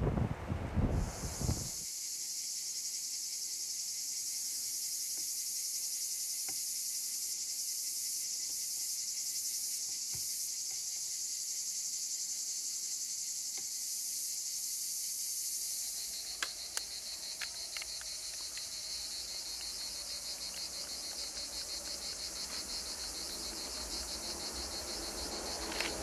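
Dense, steady high-pitched buzzing chorus of cicadas, after a brief gust of wind on the microphone at the start. About two-thirds of the way in the buzz changes texture and a faint low rumble joins, with a few clicks.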